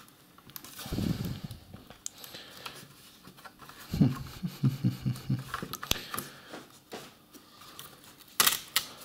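Light clicks, taps and knocks of hands handling the plastic and metal parts of a ThinkPad E550 laptop's motherboard, fan and cables, with a sharper cluster of clicks near the end.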